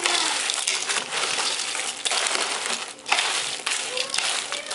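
Cooked crayfish being stirred with a metal ladle in a large pot: shells rattling, crunching and scraping against each other and the pot, with many sharp clicks and a short lull about three seconds in.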